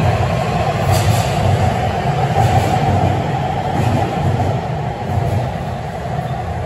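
Beijing Subway Line 6 train moving past the platform behind the platform screen doors: a steady rumble of wheels and motors, easing slightly near the end.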